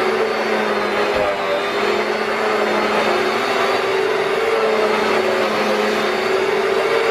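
Vacuum cleaner running steadily: an even motor hum with a steady whining tone over the rush of airflow.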